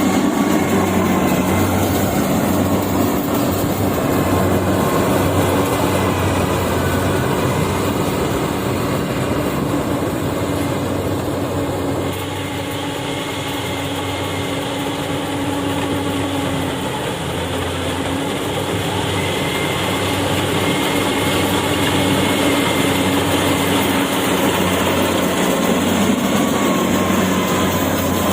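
Yanmar AW70V combine harvester running steadily under load: its diesel engine and threshing machinery make a continuous mechanical drone with a low pulsing. It dips a little in loudness around the middle, then builds back.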